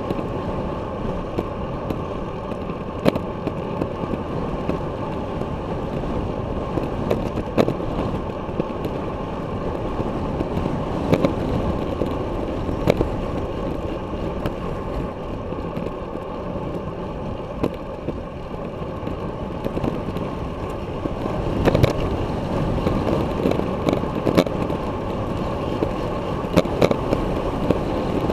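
Wind rushing over the microphone and tyre noise from a road bicycle racing on a concrete street, a steady rushing rumble. Scattered sharp clicks and knocks break through it every few seconds, more of them near the end.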